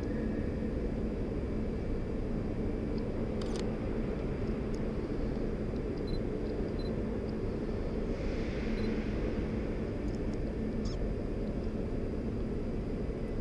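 Camera shutter clicking, once about three and a half seconds in and again near eleven seconds, over the steady low rumble of a large station hall.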